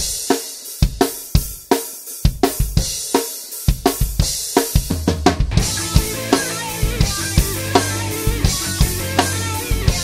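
Drum kit played in a rock groove, with sharp snare hits from a 10-inch by 5½-inch snare drum whose shell is a cardboard concrete-form tube, plus bass drum and cymbals. For the first few seconds the drums are sparse and stand alone. About four seconds in, sustained bass and other instruments of a band track fill in beneath them.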